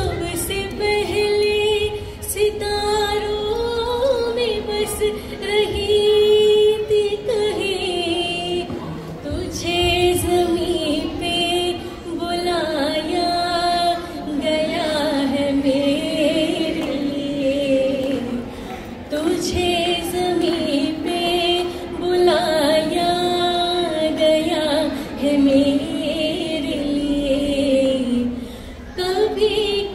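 A woman singing a Hindi film song into a microphone, in long melodic phrases with short breaks for breath.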